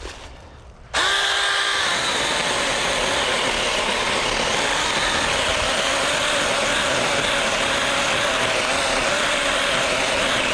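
Small 6-inch chainsaw starting abruptly about a second in with a short high whine, then running steadily as it saws into the wood of a downed tree.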